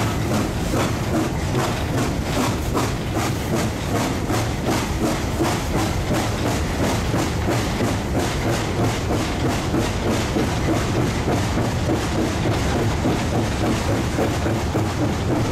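A China Railways JS-class 2-8-2 steam locomotive working a train, its exhaust beats coming in a rapid, even rhythm over the rumble and clatter of the wagons' wheels on the track, heard close up from a wagon riding behind.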